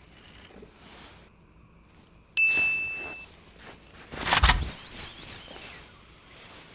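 A single high ding that holds for under a second about two and a half seconds in, then a short loud rush of noise with a low thump about four seconds in.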